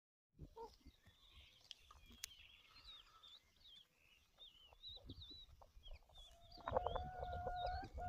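Brown hens pecking at a rock, with faint sharp taps of beaks on stone and soft clucking. High wavering chirps run through most of it, and from nearly seven seconds in a hen gives a drawn-out call held on one pitch.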